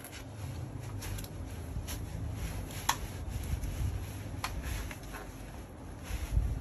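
Fabric seat of a Babyzen YOYO 2 stroller rustling as it is pulled down over the backrest frame by hand, with a few small clicks from the frame, the sharpest about three seconds in.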